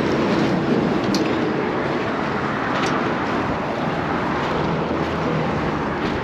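Steady rushing wind noise across the microphone, with two faint clicks.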